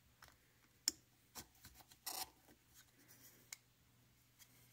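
Faint clicks and a short scrape of a flattened copper contact strip being slid into the slot of a 3D-printed plastic battery holder. The sharpest click comes about a second in, and the scrape a little after two seconds.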